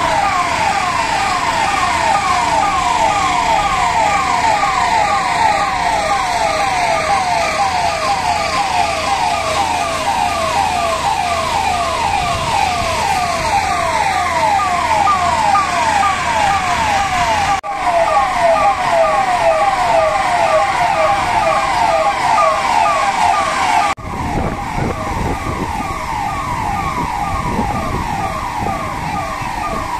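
Electronic siren sounding a fast yelp, a rapid falling sweep repeating about three or four times a second without pause. From about two-thirds of the way in, a low rushing noise runs underneath it.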